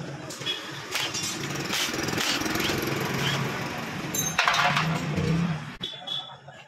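Cordless impact wrench with a socket extension run in bursts to spin out the cylinder-head cover bolts of a small motorcycle engine. The rattle is loudest about four and a half seconds in and stops near the end.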